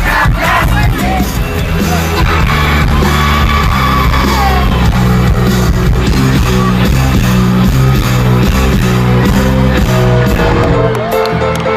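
Rock band playing live and loud, electric guitars, bass and drums with singing over them; the bass and drums drop away near the end.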